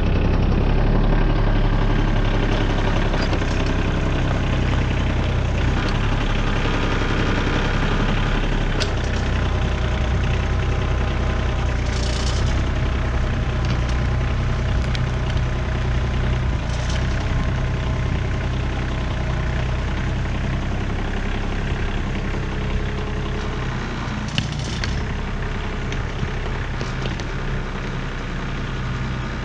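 Small New Holland 1725 compact tractor's diesel engine running steadily while pulling a moldboard turning plow through broken-up soil.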